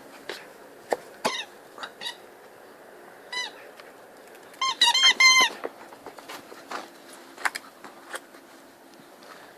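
Squeaky dog toy squeaking in short bursts as a dog bites it, with a quick run of several squeaks about five seconds in, amid scattered soft clicks and knocks.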